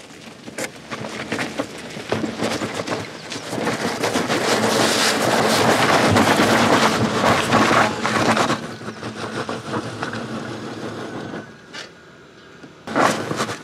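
A car running and moving, a rush of noise that swells about two seconds in, is loudest in the middle and dies away near the end, followed by a short loud burst.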